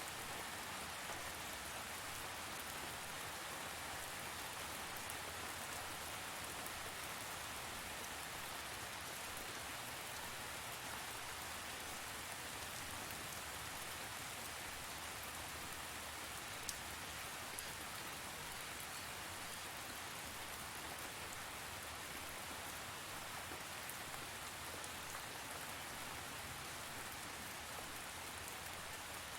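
Steady rain falling, a constant hiss with scattered drop ticks and one sharper tick about 17 seconds in.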